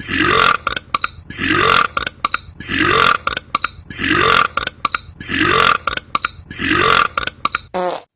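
A man belching loudly: short, near-identical burps repeated evenly about once a second, about seven in all, each rising slightly in pitch. Just before the end comes a shorter, buzzier sound.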